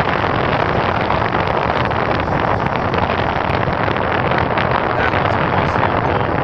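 Steady loud rush of wind buffeting the microphone while moving at speed.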